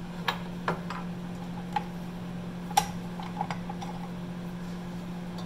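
A few scattered light clicks and clinks as a stand mixer's wire balloon whisk is handled against its stainless steel bowl of stiffly beaten egg whites, over a steady low hum.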